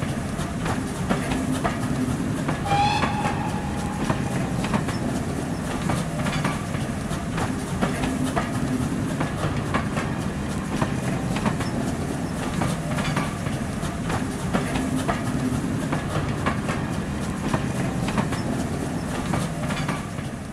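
Railway coaches passing close by, with a steady rumble and the wheels clicking over rail joints. A short high pitched tone sounds about three seconds in.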